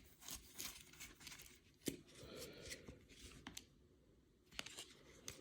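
Faint clicks and rustling of baseball cards being handled and flipped through one after another.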